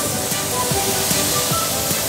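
Background music with a steady beat, over the steady hiss of car-wash hoses spraying water.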